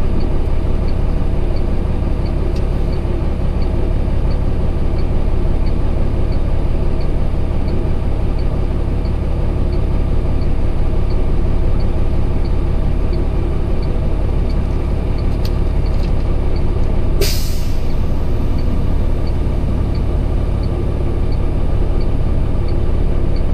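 Diesel truck engine idling steadily, heard from inside the cab, with faint regular ticking a little under twice a second. About 17 seconds in, a short sharp hiss of air from the truck's air brake system.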